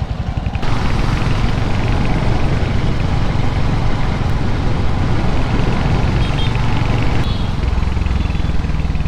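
Motorcycle engine running steadily while riding in traffic, with a broad rush of wind and road noise that comes in under a second in and eases off near the end.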